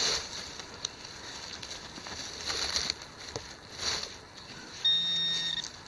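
Scraping and rustling of digging in leafy, rooty soil, then near the end a metal detector's pinpointer sounds a steady electronic tone for just under a second as it finds metal in the hole.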